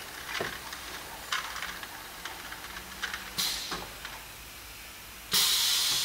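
Pneumatic cylinders on a wooden-door lock-hole and hinge-slot drilling machine working: a few sharp clacks and two hisses of released compressed air. The second hiss, about five seconds in, is the loudest and lasts about a second.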